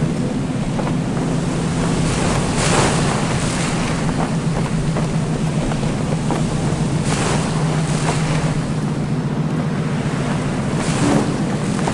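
Ferry under way at sea: a steady low engine hum beneath rushing wind and water, which swells three times, roughly every four seconds.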